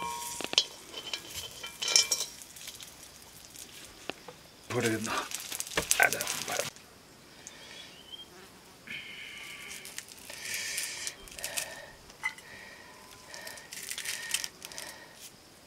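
Light snipping and handling clicks as green stalks are sliced with a serrated sickle over a steel bowl, with insects buzzing in the background.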